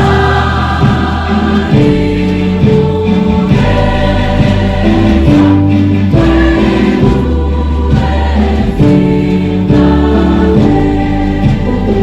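Music: choral singing in a gospel style, with sustained chords over a steady bass line.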